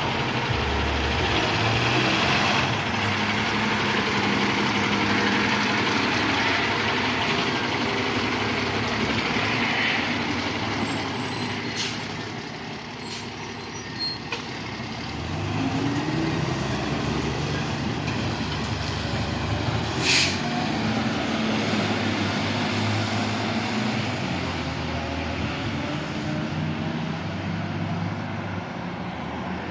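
Fire engine's diesel engine running and pulling away, its pitch rising about halfway through as it accelerates, with a short burst of air hiss about two-thirds of the way in.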